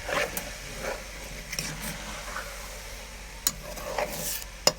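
Egusi soup being stirred in a cooking pot, a utensil scraping through it against the pot in repeated strokes, with two sharp knocks against the pot in the second half.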